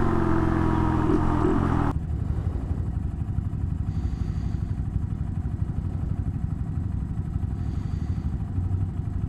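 Honda Monkey's small single-cylinder four-stroke engine running steadily under way. About two seconds in the sound cuts abruptly to a quieter, rougher engine sound with road noise.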